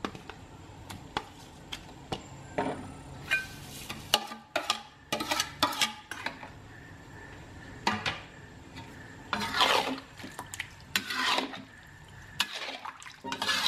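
A metal ladle scraping and clinking against a wok as tripe is stirred in its spiced broth, in repeated strokes with sharp knocks in between; near the start, seasonings are tipped in from a plastic plate.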